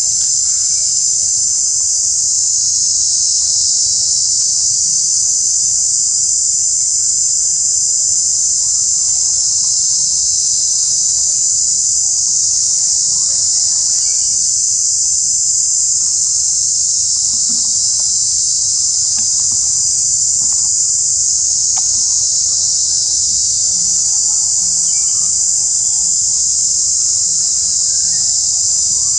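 A steady, loud, high-pitched insect chorus drones without a break.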